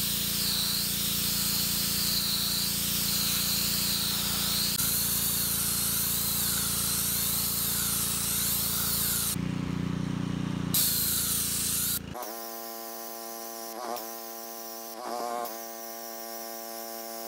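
Gas pressure washer running: its small engine drones steadily under the hiss of the high-pressure jet from the wand, showing the rebuilt pump is delivering pressure again. About two-thirds of the way through, the sound turns into a quieter, thinner steady buzz.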